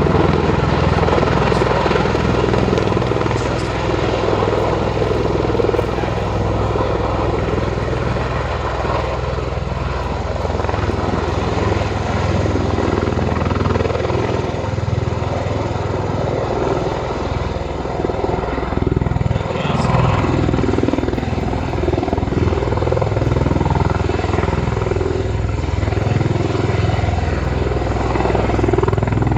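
Aircraft flying at an air show: a loud, steady engine and propeller or rotor drone.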